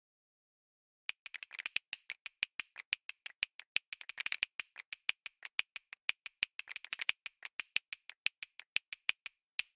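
A quick run of short, sharp percussive clicks, about three to four a second with denser flurries, starting about a second in.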